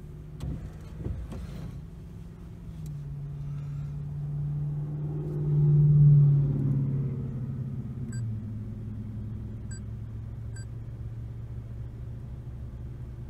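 A motor vehicle's engine hums steadily, swells to its loudest about six seconds in, then drops in pitch and settles into a lower steady hum.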